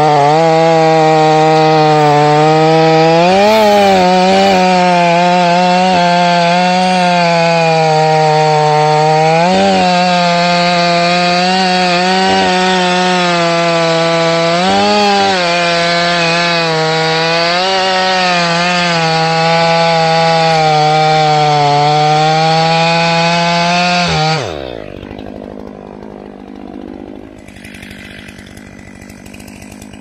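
Stihl 500i fuel-injected two-stroke chainsaw running at full throttle, cutting through a large white oak log, its engine pitch rising briefly several times. About 24 seconds in, the throttle is released and the engine winds down.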